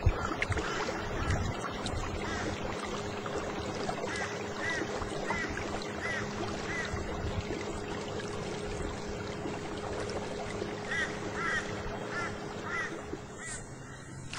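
Electric canoe motor running with a steady hum over water noise, while a bird calls in runs of short repeated notes, about four seconds in and again about eleven seconds in.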